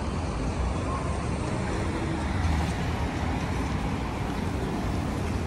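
Steady city street traffic noise: a continuous low rumble of passing cars.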